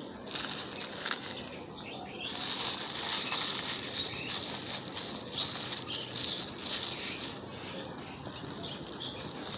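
Rustling and crinkling of plastic bags and polythene litter as it is picked up and stuffed into a garbage bag.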